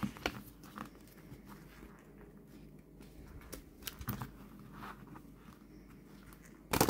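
Tarot cards handled and split into halves, with faint scattered taps and clicks. Near the end a loud riffle shuffle of the Jack-o'-lantern tarot deck begins suddenly.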